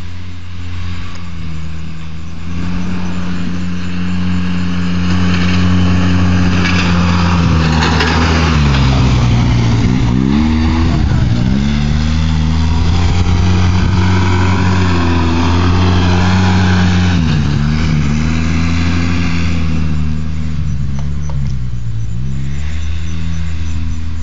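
ATV engine running as it tows a rider in a tub across grass, its pitch dropping and coming back up several times.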